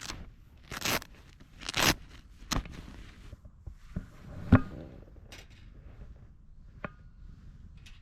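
Dry twigs being broken and handled for a small wood fire: two rustling, crunching snaps, then a few sharp cracks, the loudest about halfway through, some with a faint ringing after them.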